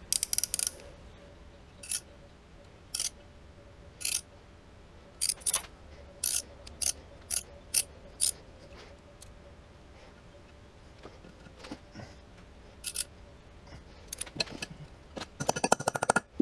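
Metal hand tools clicking and ticking as a screw extractor is worked into a broken bolt in a cylinder head: about a dozen separate sharp clicks spread out, then a quick run of ratchet-like clicking near the end.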